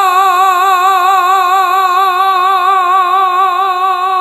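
A singer's voice holding one long note with an even vibrato at the close of a Bengali nasheed; near the end the vibrato stops and the note holds straight.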